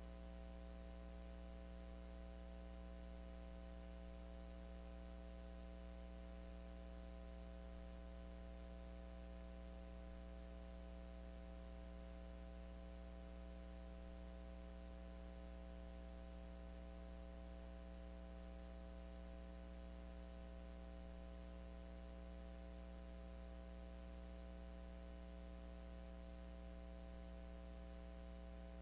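Steady, faint electrical hum at mains frequency with its overtones, unchanging throughout.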